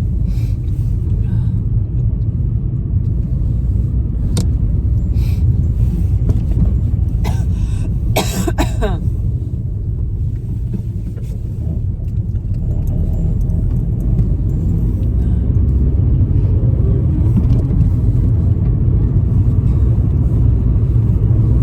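Steady low rumble of a car's engine and road noise heard from inside the moving car. A brief sharp sound, possibly from the driver's throat, cuts through a little after eight seconds.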